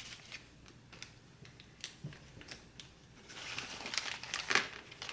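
Packaging for the new part and its screws crinkling as it is handled, with scattered light clicks; the rustling gets busier over the last couple of seconds.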